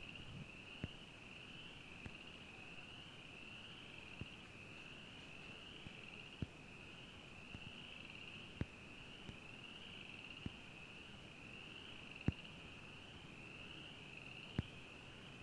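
Dense night chorus of small calling creatures: a continuous high-pitched trill that wavers gently and evenly, with faint sharp clicks every second or two.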